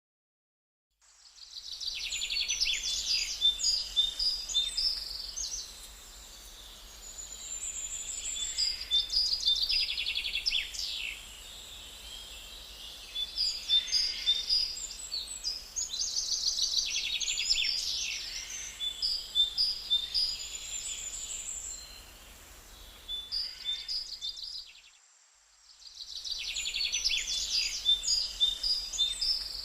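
Songbirds chirping and singing in quick high trills and twitters that rise and fall in waves. Near the end the birdsong drops out for about a second, then starts again.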